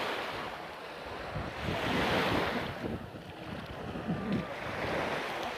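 Small sea waves washing in the shallows, swelling and fading every two to three seconds, with wind buffeting the microphone.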